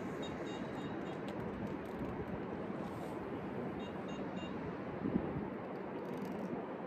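Steady outdoor background rush with no clear single source, with a few faint short high ticks and a small knock about five seconds in.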